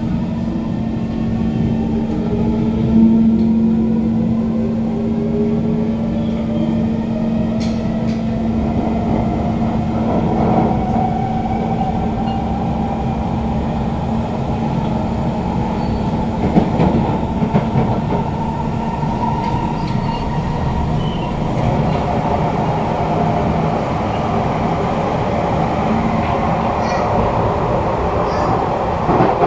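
Kawasaki Heavy Industries C151 metro train's GTO-VVVF traction inverters and motors whining in several tones that rise in pitch as the train accelerates away from the station, then settle into a steady whine at speed. Wheels rumble on the track throughout, with a few brief knocks around halfway.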